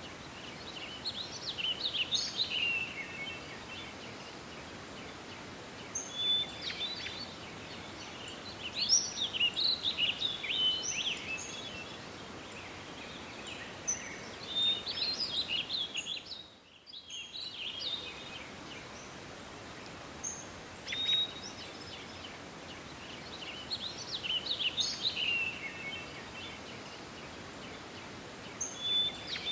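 A songbird singing quick warbled phrases a second or two long, repeated every few seconds, over a steady outdoor hiss. About halfway through, the hiss and the song drop out briefly, then carry on.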